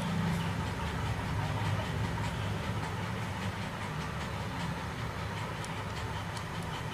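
Steady low rumble of background noise, like distant traffic or an idling engine, with a few faint light ticks.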